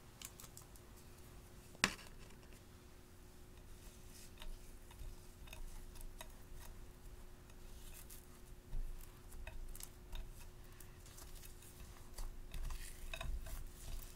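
Hands working clear slime coated in glitter in a glass pie dish: sticky squishes and crackles with scattered small clicks, busiest near the middle and the end. A single sharp click comes about two seconds in.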